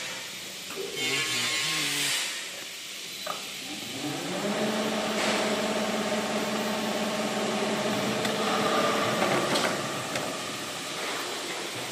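A hiss about a second in. About four seconds in, a motor or engine winds up and runs at a steady pitch for about five seconds, then fades.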